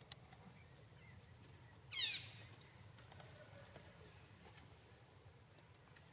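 A single short, high-pitched animal call about two seconds in: a quick run of falling chirps. Otherwise quiet.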